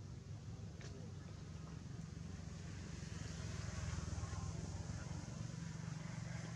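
Steady outdoor background noise: a low rumble with a hiss over it, swelling a little around the middle.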